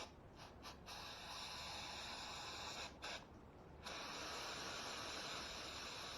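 Aerosol cleaner hissing from a spray can in two bursts of about two seconds each with a short pause between, cleaning off a variable valve timing solenoid. A few light clicks come before the first burst.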